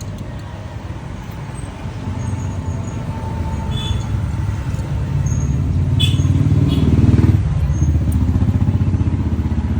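Bajaj Pulsar's single-cylinder motorcycle engine running with a steady low pulsing. It grows louder over several seconds, falls off sharply about seven seconds in, and then carries on running.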